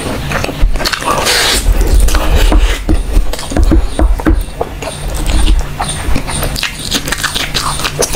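Close-miked, open-mouthed chewing and lip-smacking of a person eating rice and curry by hand: a quick, irregular run of wet clicks and squelches over a low rumble, with a short hissy slurp or breath about a second in.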